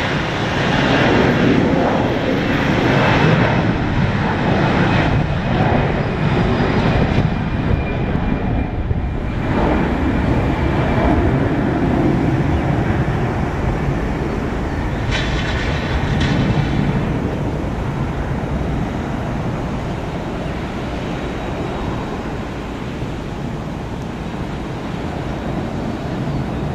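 Airbus A321-211's CFM56 turbofan engines at takeoff thrust: a loud, steady roar with a high whine as the jet rolls past. It eases slowly as the aircraft lifts off and climbs away.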